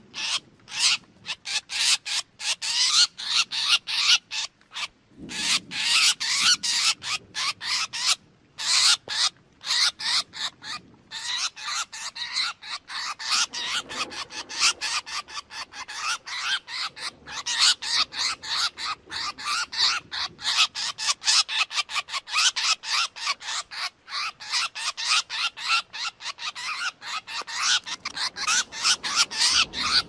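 Drongo calling: a fast, harsh chatter of short notes, several a second, with brief pauses about five and eight seconds in.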